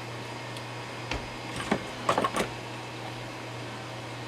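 A few light clicks and taps from tools and wire being handled during soldering work on a radio chassis, about one to two and a half seconds in, over a steady low hum.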